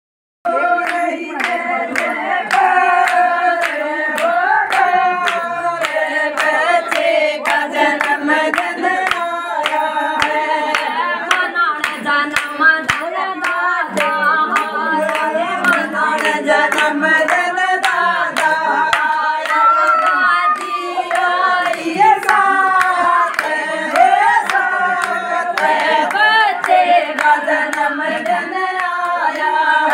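A group of women singing a Haryanvi devotional bhajan together in unison, with steady rhythmic hand clapping about twice a second.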